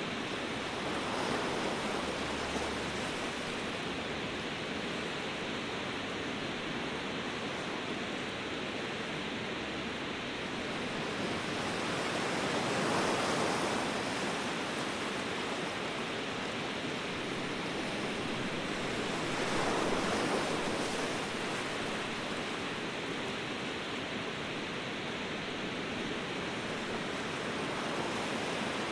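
Ocean surf: a steady wash of waves, swelling three times as waves break and run in, about a second in, around thirteen seconds and around twenty seconds.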